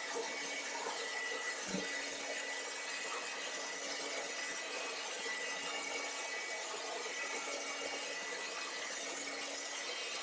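Hand-held hair dryer running steadily, blowing air over a damp wooden gun stock to dry it and raise the grain.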